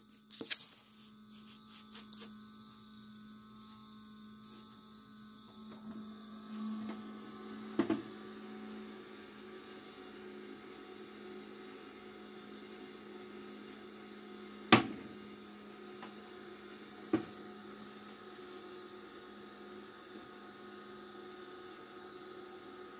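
Steady electrical hum of an egg incubator's fan, with several sharp knocks and clicks from handling the incubator and eggs, the loudest about fifteen seconds in.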